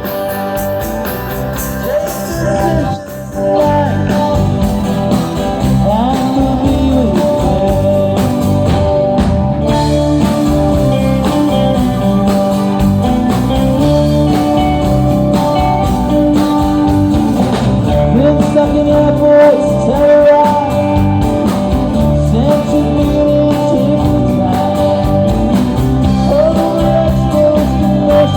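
Live rock band playing a song with a sung vocal over guitar and a steady beat, with a short break about three seconds in.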